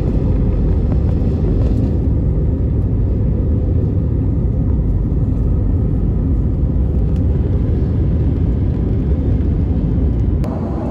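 Jet airliner's engines heard from inside the cabin during takeoff and climb-out: a loud, steady, deep rumble. It changes abruptly near the end.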